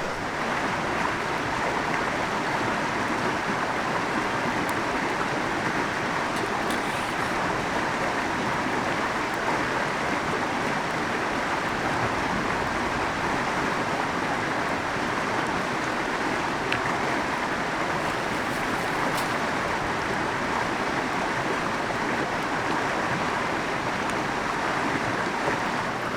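River water rushing steadily over stones, a constant even wash.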